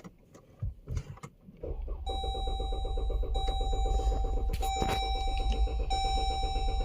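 A few clicks, then about a second and a half in the starter begins cranking the 3.6-litre V6 in clear-flood mode, throttle held wide open so it turns over without starting, a steady pulsing of compression strokes listened to for an uneven, low cylinder. A vehicle warning chime repeats about every second and a quarter over the cranking.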